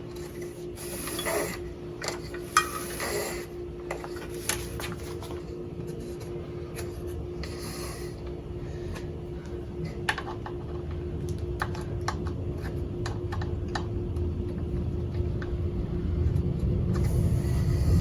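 Nylon starter rope being pulled through an outboard's rewind starter by hand: scattered light clicks, scrapes and short rubbing swishes of the rope and parts being handled. A steady hum runs underneath, and a low rumble builds near the end.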